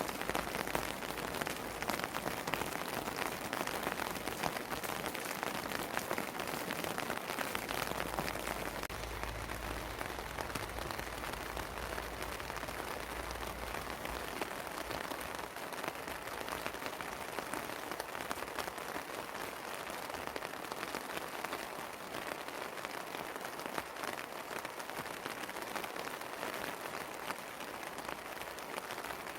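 Steady rain falling: a dense hiss of countless drops, with single drops ticking close by. A low rumble joins underneath for several seconds, starting about eight seconds in.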